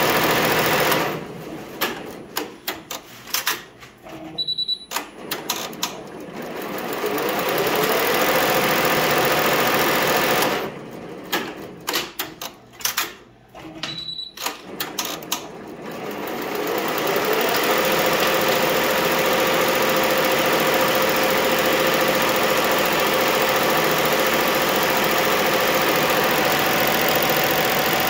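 Multi-needle embroidery machine stitching at speed. Twice it stops for a few seconds with a run of clicks and a short beep, typical of thread trims between letters, then its running note rises as it speeds back up to full stitching speed.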